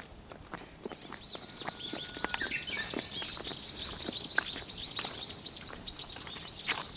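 A songbird singing a fast, unbroken run of high chirps that starts about a second in, with scattered faint ticks underneath.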